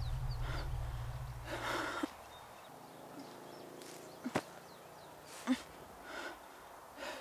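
Film soundtrack: a deep, steady droning tone that stops about two seconds in, followed by a fainter higher hum, with a few short breathy noises and one sharp click about four seconds in.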